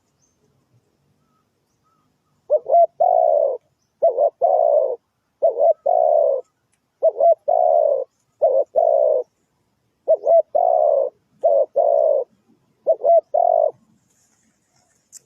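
Spotted dove cooing: eight phrases about a second and a half apart, each a quick double note followed by a longer coo, starting a couple of seconds in.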